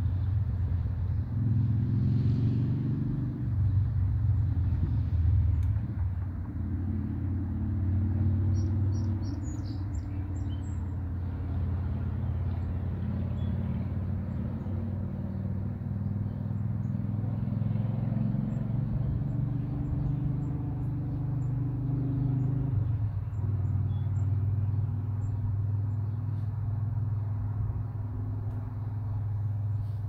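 A steady low engine hum, with a few faint bird chirps about ten seconds in.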